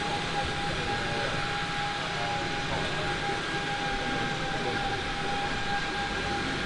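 A machine running steadily: a constant high whine over an even rush of noise.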